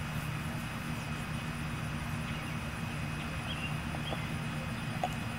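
A puppy gnawing on a bone, giving a few faint clicks, over a steady low background hum.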